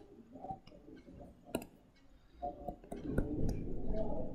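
Light clicks and taps of a stylus on a tablet while handwriting is added. A louder muffled low sound fills the second half.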